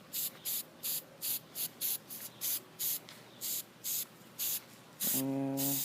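Aerosol spray paint can spraying dark green paint onto a mask in short rapid puffs of hiss, about three a second, with a longer spray near the end. A short steady pitched tone sounds with that last spray.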